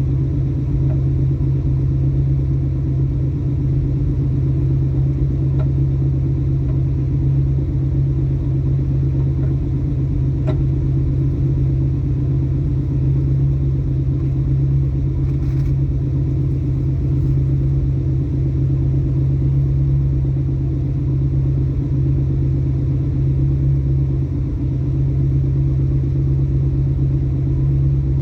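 Ford Mustang Mach 1 driving along, its engine and exhaust giving a steady low rumble that holds one pitch throughout.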